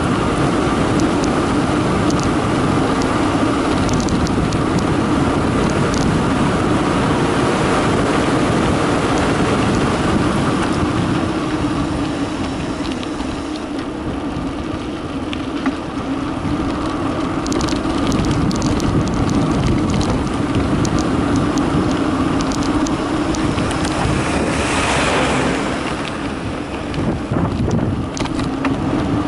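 Wind rushing over the microphone and the tyres of a Carraro Big 827 mountain bike rolling fast down a concrete road, with a steady hum and scattered small ticks and rattles. The noise eases a little about halfway through and again near the end.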